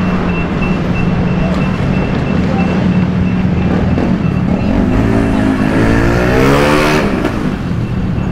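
Street traffic: motor vehicle engines running steadily, with one engine revving up and passing, loudest about seven seconds in.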